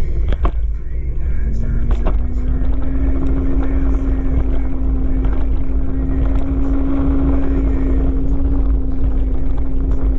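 Kaabo Wolf King GT electric scooter riding along: heavy wind buffeting on the microphone, with a steady electric hub-motor whine that rises slightly about a second in and then holds at cruising speed.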